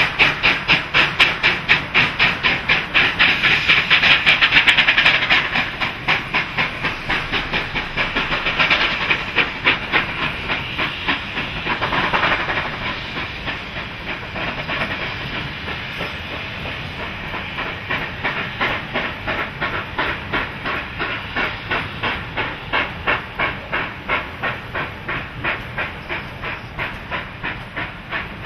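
Two NSW 38 class Pacific steam locomotives, 3801 and 3830, double-heading a passenger train: rapid rhythmic exhaust beats with steam hiss, loudest in the first five seconds and fading as the engines draw away. The carriages roll by with a clickety-clack over the rail joints.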